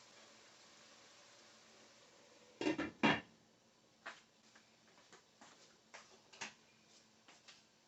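Kitchen utensils clattering against cookware: two loud clatters close together about two and a half to three seconds in, then a string of lighter clicks and taps.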